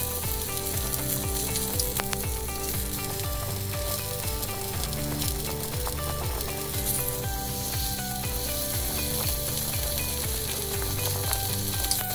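Beef ribs sizzling steadily in hot oil as they brown in a small cast iron Dutch oven.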